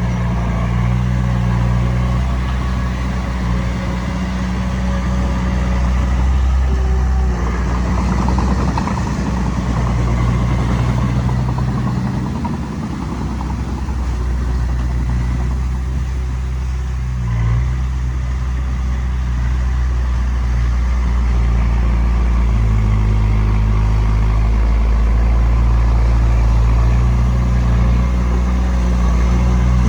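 Diesel engine of a Komatsu D20P bulldozer running under load as it pushes sand. The engine note steps up and down repeatedly as the throttle and load change.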